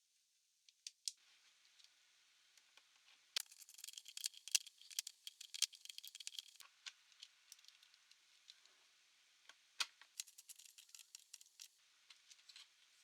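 Faint clusters of quick, light clicks and rattles from small hard parts being handled while a laptop is taken apart, with a few sharper single clicks in between.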